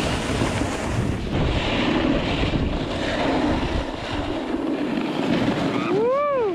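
Wind rushing over a helmet-mounted action camera's microphone while snowboards slide over packed snow: a steady rushing noise. Near the end comes a short vocal whoop that rises and then falls in pitch.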